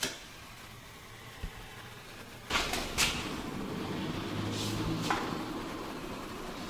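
Cartridge caulking gun being squeezed to lay sealant along a sink edge: a few sharp clacks from its trigger, in two pairs about half a second apart, over a steady low hum.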